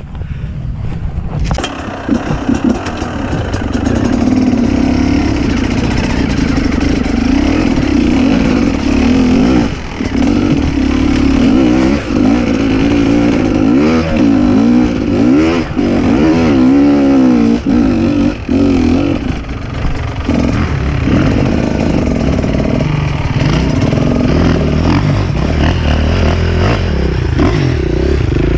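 Enduro dirt bike engine running hard and revving up and down. It builds over the first couple of seconds to loud, continuous running, with quick swings in pitch through the middle as the throttle is worked.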